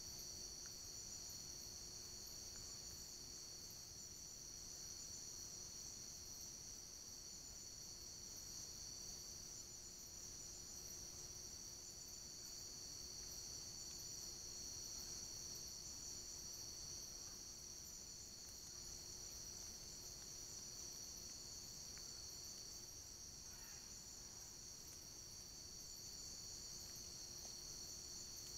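Steady high-pitched chorus of night insects, likely crickets, with an unbroken trill. A faint low steady hum sits beneath it.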